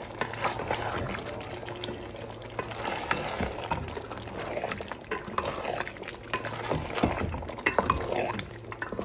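Raw chicken pieces being stirred and turned through sizzling masala in a large metal pot, with irregular scrapes and small knocks of the spoon against the pot, as the chicken is sautéed (bhuna) in the masala.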